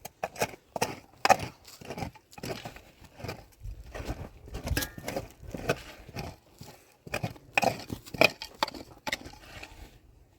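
Hand work with wood: an irregular run of sharp knocks and snapping cracks, two or three a second, dying away near the end.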